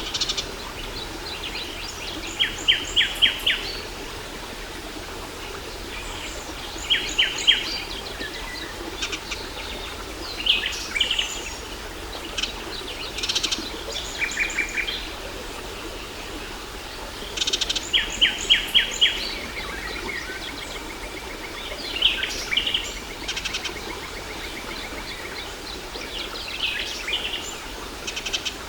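Birds singing over the steady rush of a waterfall: a short phrase of four or five quick notes recurs every several seconds, with other chirps in between.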